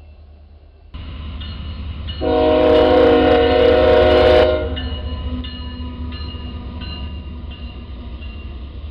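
Train passing close by: a rumble starts suddenly about a second in, the locomotive horn sounds loudly for about two seconds and cuts off, and then the wheels click over the rail joints about twice a second as the cars roll past.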